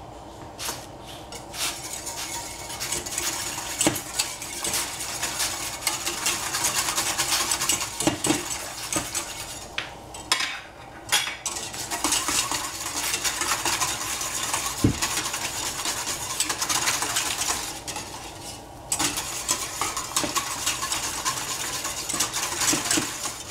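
A spoon stirring and scraping in a cooking pot, with scattered clinks of utensil against pot; the stirring pauses briefly twice.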